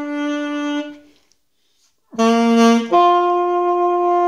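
Saxophone playing slow, held notes. One note fades out about a second in, followed by a short silence. A new note starts after about two seconds, steps up to a higher note about a second later and holds it.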